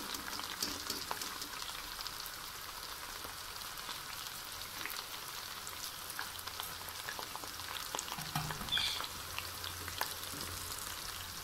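Chopped okra frying in hot ghee in a metal pot: a steady sizzle with scattered crackles and pops. A wire-mesh skimmer stirs through the pieces and lifts them out.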